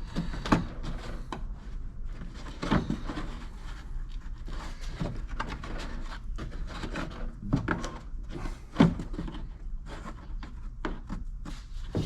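Plastic trim cover on a Kia Optima's trunk lid being pried off with a trim tool: irregular knocks, clicks and scrapes of plastic and its push-pin clips, over a steady low hum.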